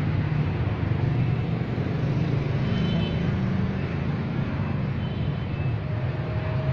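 Steady rumble of street traffic, an even noise with no single event standing out.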